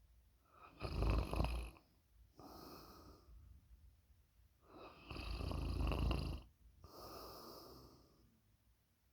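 A sleeping person snoring: two loud snores about four seconds apart, each followed by a quieter, breathy breath.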